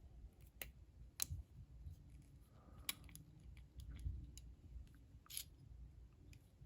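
Faint, scattered metallic clicks and ticks of lock picks working inside a lock, a few sharp clicks spread irregularly a second or more apart.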